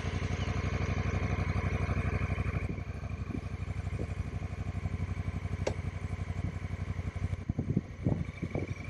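Honda Africa Twin's 998 cc parallel-twin engine idling with an even pulse, just after being restarted. A few light knocks near the end.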